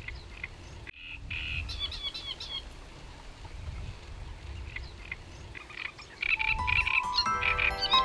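Outdoor nature ambience: short, repeated chirping animal calls over a low wind rumble. Near the end, music of sustained chime-like mallet notes comes in.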